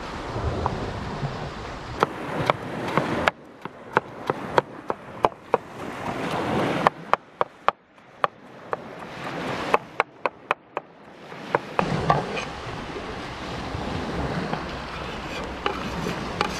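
Knife chopping on a wooden cutting board: a string of sharp, irregularly spaced knocks through the middle, over a steady wash of surf and wind.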